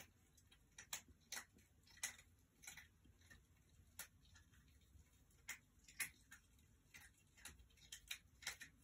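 Pencil scratching on paper in short strokes: a faint, irregular series of scratchy ticks.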